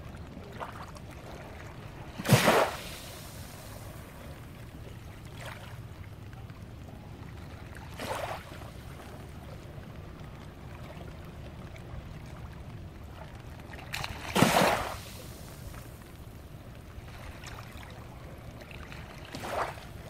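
Small, gentle waves lapping and sloshing at the shoreline: a few short splashes, the loudest about two seconds in and again about fourteen seconds in, with lighter ones in between and near the end, over a steady low rumble.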